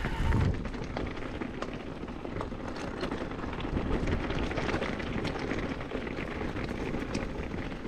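Mountain bike riding over a stony trail: tyres crunching on loose rock under a steady rush of noise, with many small clicks and rattles from the bike and a heavier knock right at the start.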